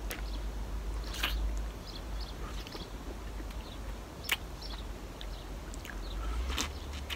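Wet mouth sounds of people sucking and licking ice lollies, with a few sharp lip smacks over a low steady rumble.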